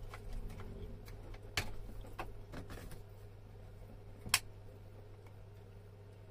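A few sharp clicks and light knocks of small parts being handled, the loudest about four seconds in, over the steady low hum of a running room fan.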